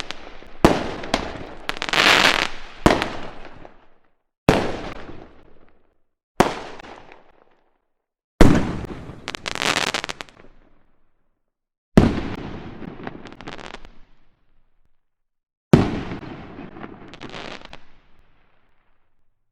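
Fireworks exploding one at a time: about eight sharp bangs, spaced one to four seconds apart, each fading out over a second or two, several trailing off in crackles.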